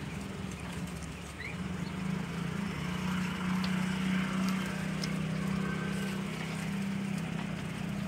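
A steady low mechanical hum that swells about a second and a half in, with scattered faint clicks and a short rising chirp near the start.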